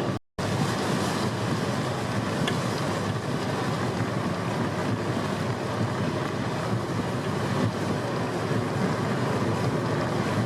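Steady road and tyre noise from a car driving on wet roads in rain, a constant even rush heard from inside the car. It cuts out completely for a moment just after the start.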